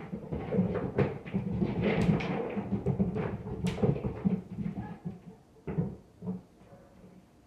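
Rapid, irregular thumping and banging from the apartment upstairs, coming through the ceiling, dense for about four seconds and then two single thumps near the end.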